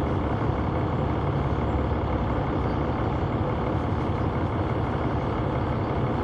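A Neoplan AN459 articulated bus's Caterpillar C9 diesel engine running at a steady level, heard from inside the passenger cabin as a deep rumble mixed with a steady hiss of cabin noise.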